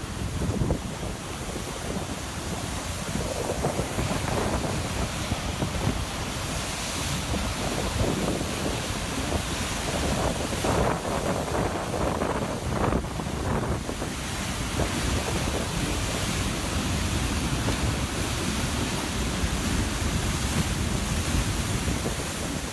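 Thawing river rushing beneath and around large sheets of breaking ice as they slide toward a low waterfall: a steady roar of moving water, a little louder about halfway through, with wind buffeting the microphone.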